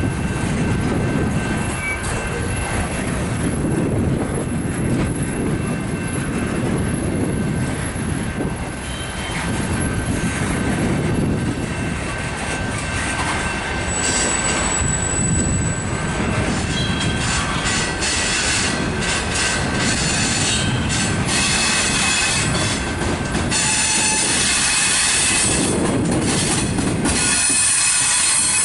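Covered hopper cars of a mixed freight train rolling past: a steady rumble of steel wheels on rail, with high-pitched wheel squeal coming in about halfway through and getting stronger near the end.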